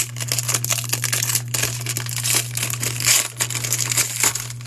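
Plastic wrapper of a Topps baseball card pack being torn open and crinkled by hand, a dense run of crackling rustles.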